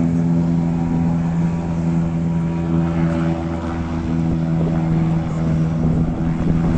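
An engine running steadily at an even speed, its pitch holding level throughout.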